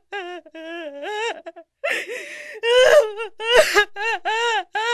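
A high voice crying and wailing in repeated drawn-out, rising-and-falling cries, broken by sobbing gasps for breath.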